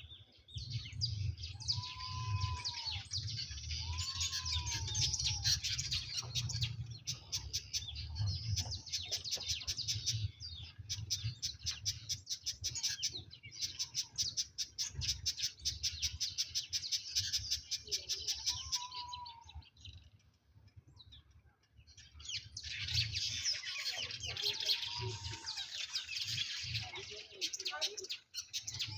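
Many small birds chattering and chirping continuously, with a few separate louder down-curving whistled calls. A low rumble runs underneath, and everything drops away briefly about two-thirds of the way through before the chatter resumes.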